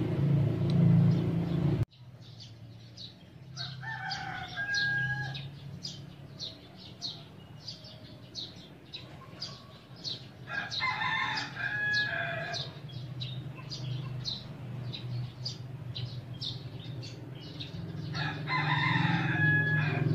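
A low rumble cuts off suddenly about two seconds in; then roosters crow three times, several seconds apart, over a steady high chirping and a low hum.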